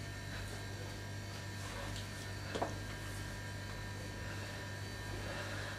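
Steady low electrical hum with a brief faint knock about two and a half seconds in.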